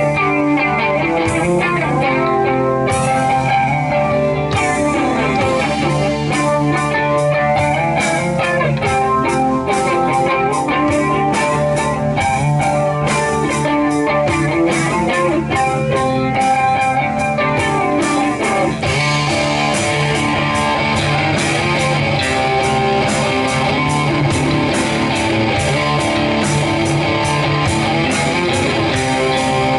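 Live rock band jamming, led by electric guitar over a steady beat of drum hits. A little past halfway the sound thickens with a wash of cymbals.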